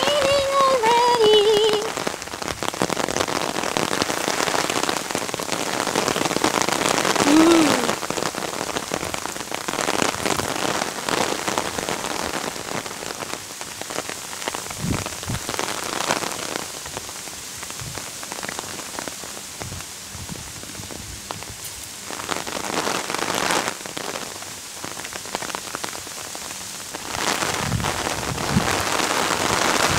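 Steady rain pattering on an umbrella, a dense spatter of drops. A short falling pitched call sounds in the first two seconds.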